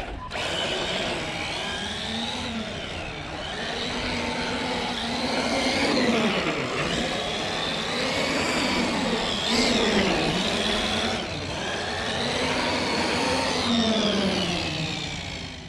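Traxxas X-Maxx 8S electric RC monster truck driving hard: the brushless motor and drivetrain whine rising and falling in pitch over and over as the throttle is applied and let off.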